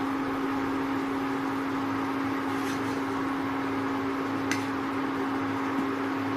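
Induction cooktop running: a steady electric hum and cooling-fan noise, with a lower buzz that pulses about once a second. A short click of the spatula against the pan about four and a half seconds in.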